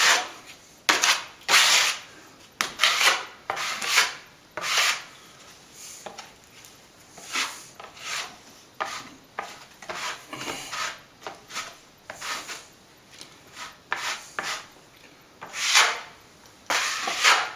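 A plastering blade scraping and swishing across a wall in repeated short strokes, one or two a second, feathering out and polishing a nearly set coat of dampened stopping plaster.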